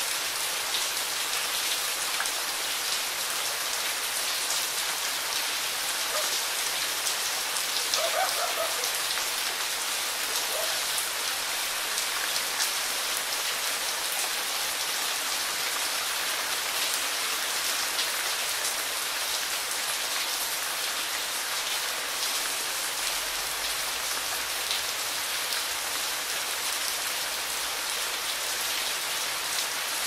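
Heavy rain falling steadily: a dense, even hiss with fine, quick patter of individual drops throughout.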